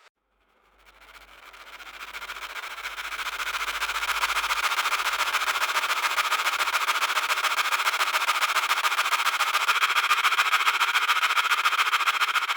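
Grain silo aeration fan running, fading in from silence over the first few seconds to a steady whooshing drone with a fast, even pulsing.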